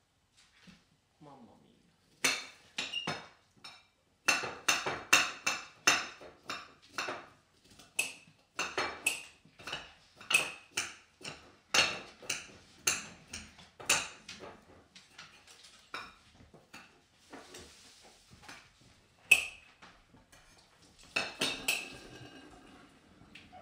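Kitchen knives chopping on cutting boards: a run of sharp knocks, about two a second, that thins out after about fourteen seconds, with a short burst of clatter near the end.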